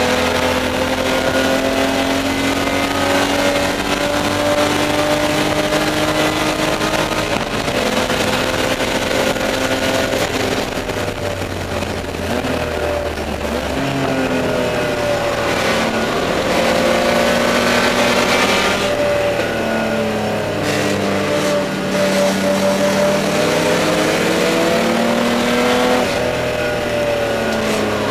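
Spec E30 BMW race car's straight-six engine heard from inside the cockpit at racing speed, its note climbing through the revs and dropping at gear changes several times, with road and wind noise underneath.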